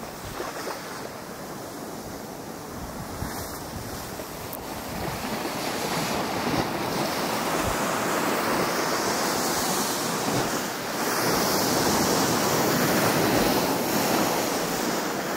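Lake Michigan waves washing through slushy ice along a frozen shoreline, a steady hiss of water with some wind. It grows louder about five seconds in and again past the middle.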